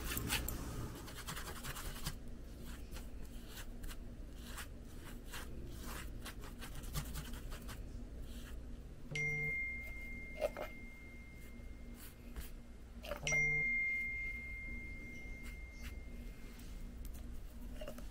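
Faint scratching and handling sounds of a paintbrush on canvas fabric and paint bottles. Twice, at about nine and thirteen seconds in, a click followed by a high bell-like chime that rings for about three seconds and fades, the sound effect of an on-screen subscribe-button animation.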